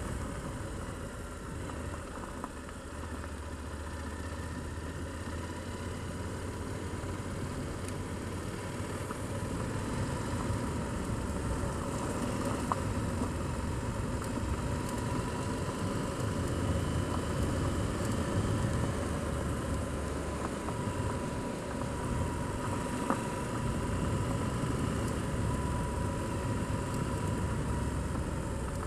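Touring motorcycle's engine running steadily at low road speed on a gravel track, mixed with wind and road noise.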